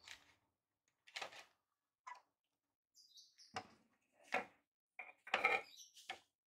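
Handling noises: about six separate short knocks and rustles as the cutting machine and its blower-fan mounting plate are picked up and moved by hand, the loudest about five and a half seconds in.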